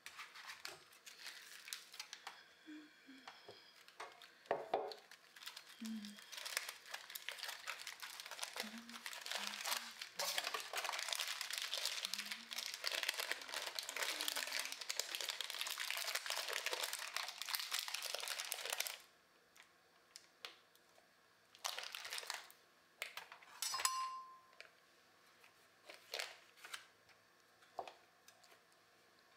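Plastic cheese wrapper crinkling and being pulled off a block of cheese: a steady crackle for the first two-thirds, then stopping suddenly and giving way to a few short crinkles and sharp clicks.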